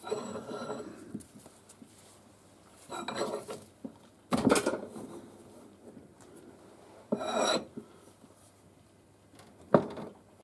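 Metal clanking and rattling as steel tools and square steel tubing are handled and set up in a machine vise, in five short bursts of clatter. The loudest burst comes about four and a half seconds in, and a single sharp clank comes near the end.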